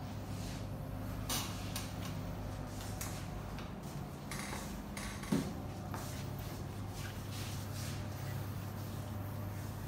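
Hands working during a chair massage: scattered brief rubs and taps over a steady low hum, with a short dull thump about five seconds in.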